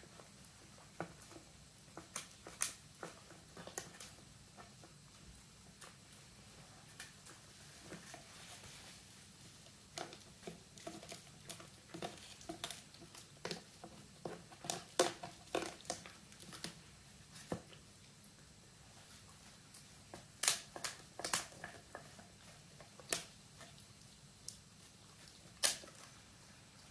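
Italian greyhound chewing a pig ear treat: irregular crunches and cracks, busiest around the middle, with the loudest cracks about two-thirds of the way in and once near the end.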